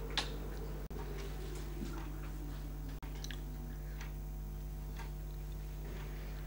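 Quiet room tone: a steady low electrical hum with a few faint, irregularly spaced clicks, and two very brief dropouts about one and three seconds in.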